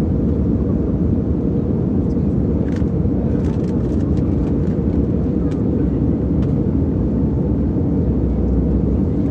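Airliner cabin noise: a steady low drone of engines and airflow filling the cabin, with a few light clicks and knocks a few seconds in and faint passenger voices beneath.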